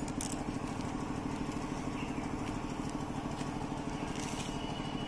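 A small engine running steadily at constant speed with a fast, even pulse and no revving.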